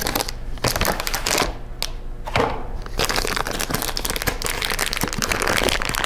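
Plastic wrapping of a new laptop battery crinkling and crackling as it is pulled open by hand: a dense run of crackles with a short lull about two seconds in.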